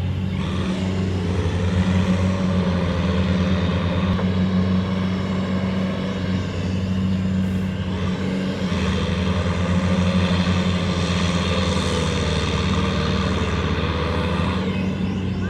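Diesel engine of heavy farm machinery running steadily, its pitch wavering slightly.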